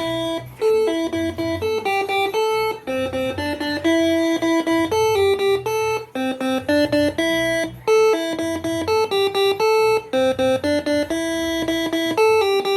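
Basuri-style multi-trumpet electric air horn, run by a Moreno MS2 telolet module, playing a fast melody of short held notes that start and stop abruptly, sometimes two at once.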